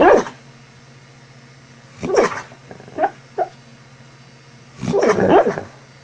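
A sleeping dog barking and yipping in its sleep: a bark at the start, another about two seconds in, two short yips near the middle and a longer run of barking about five seconds in.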